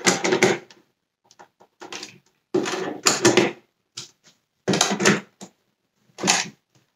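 Screws being turned by hand with a screwdriver into the plastic housing of a Dyson Cinetic Big Ball vacuum cleaner, creaking in several short bursts with pauses between them.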